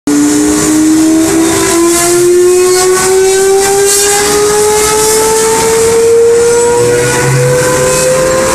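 800 hp electric motor of a whole-tree disc chipper spinning up on a soft starter: a loud whine that climbs slowly and steadily in pitch, over a steady hiss.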